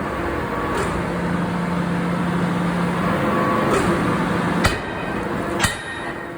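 Forge-shop machinery running with a steady hum, then two sharp metal-on-metal clanks about a second apart near the end, each ringing briefly.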